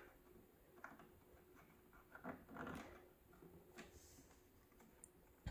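Near silence with a few faint handling noises: light rubs and clicks as a hand works the stepper motor and its 3D-printed clamp on the telescope base, with a sharp click at the end.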